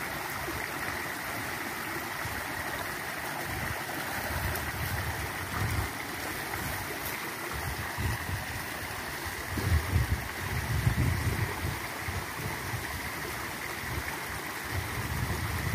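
Small stream flowing, a steady rush of water, with a few low rumbles about ten seconds in.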